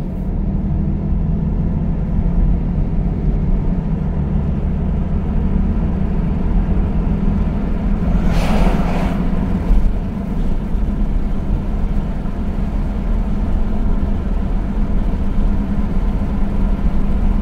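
Car driving at a steady speed, heard from inside the cabin: a steady low engine and road hum. About eight seconds in, an oncoming semi truck passes with a brief rushing whoosh that swells and fades.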